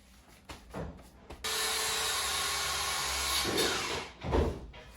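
A power tool starts abruptly and runs steadily for about two seconds, with a faint hum under its noise. There is a light knock before it and a louder thud near the end.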